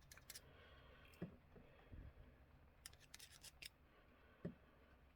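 Faint small clicks and light taps of hand tools working on a clock movement, with a quick run of several sharp clicks about three seconds in.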